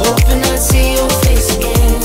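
Background music with a steady beat of deep kick-drum hits about every 0.4 s under a held melody line.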